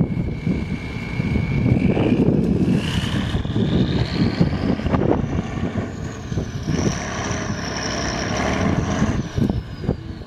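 Off-road trial truck's engine running hard under load as the truck crawls through a muddy hollow, with a high whine that rises in pitch from about two seconds in, stays high, and falls away near the end.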